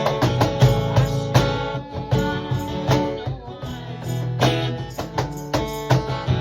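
Guitar strummed in a steady, even rhythm over a low bass line, an instrumental passage with no singing.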